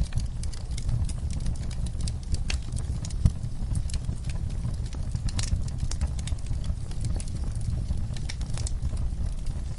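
Wood fire crackling in a fireplace: frequent irregular sharp pops and snaps over a steady low rumble of the flames, with one louder pop about three seconds in.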